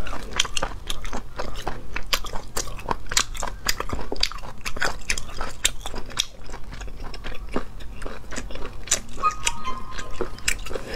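Close-miked chewing of cooked snail meat: a dense, uneven run of small wet clicks and smacks from the mouth.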